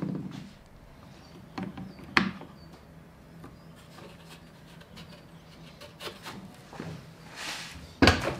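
A wooden strip handled on a plywood jig and fixed with a one-handed bar clamp: a few sharp clicks and light wooden knocks, with a louder knock near the end.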